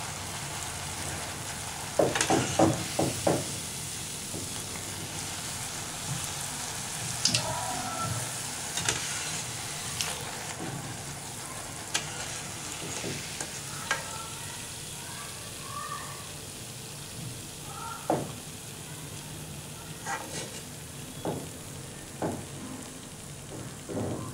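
A rose cookie (achappam) deep-frying in hot oil, sizzling steadily as it cooks until lightly brown after being flipped. A metal slotted spoon knocks and scrapes against the metal pan now and then, in a quick cluster a couple of seconds in and then single clinks every few seconds.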